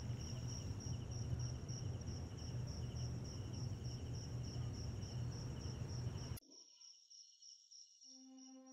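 Crickets chirping in a steady pulsing trill over a low hum, cut off suddenly about six seconds in. Then near silence, and soft sustained music tones come in near the end.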